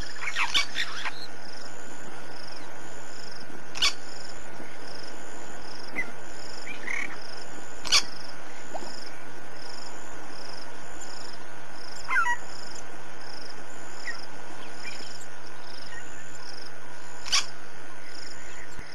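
Bush ambience with a short high call repeating about once a second, over steady hiss and a low hum, with a few sharp clicks and faint scattered chirps.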